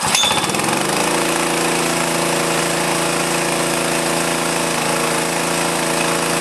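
Small petrol engine of a portable high-pressure breathing-air compressor pull-started: it catches at once, climbs in pitch for about a second, then runs steadily below full throttle.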